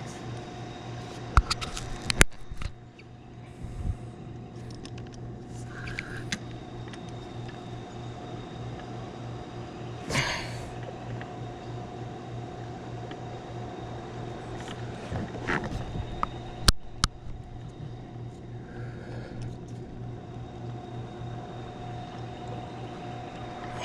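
A steady low mechanical hum with a few sharp knocks of fishing gear against the plastic kayak, and a short rushing sound about halfway through.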